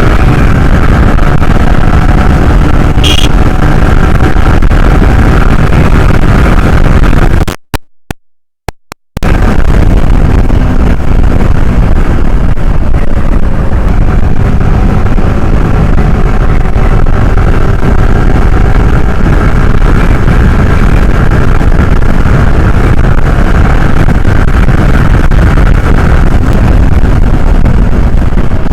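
Yamaha R15's single-cylinder engine running on the move, its pitch drifting up and down with speed, under heavy wind rumble on the rider's microphone. The sound cuts out for about a second and a half near a third of the way in, then returns.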